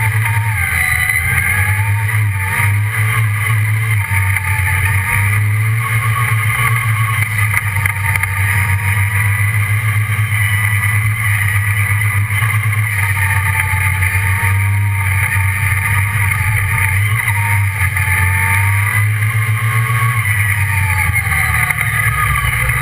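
Off-road buggy's engine running under way on a dirt track, its pitch rising and falling repeatedly as the throttle is worked, over a steady low drone.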